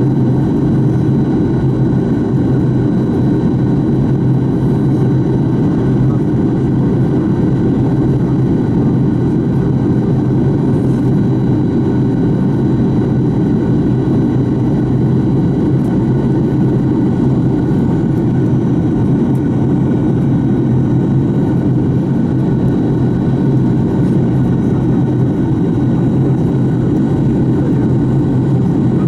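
Fokker 70 cabin beside its rear-mounted Rolls-Royce Tay turbofan in flight during the descent for landing: a loud, steady low drone and hum with a faint high whine, unchanging.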